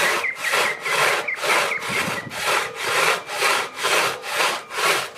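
Hand saw cutting through wood with steady back-and-forth strokes, about two a second, stopping at the end.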